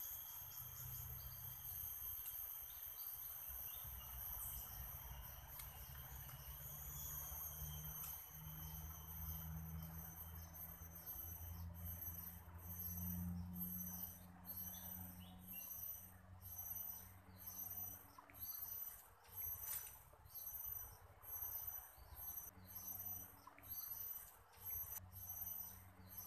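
Insects singing in a high, steady whine that, from about halfway, breaks into pulses about once a second, with a low rumble underneath.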